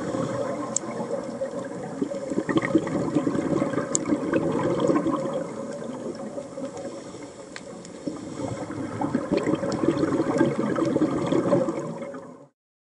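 Underwater scuba-dive audio: bubbles from a diver's regulator exhaust gurgle and rush past the camera in two long surges, with scattered sharp clicks throughout. The sound cuts off just before the end.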